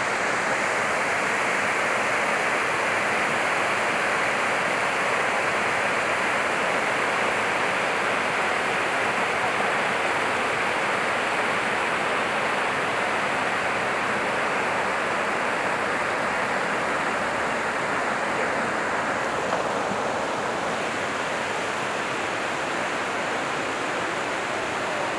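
Steady rush of flowing, falling water, an even hiss with no breaks, easing off slightly near the end.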